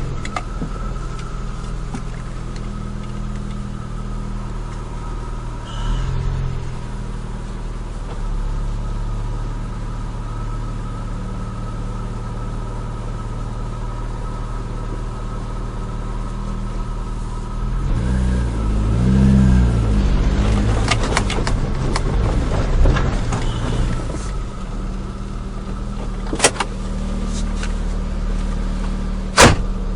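Nissan Micra 1.3's engine running steadily, its pitch wavering up and down about two-thirds of the way through, with two sharp clicks near the end.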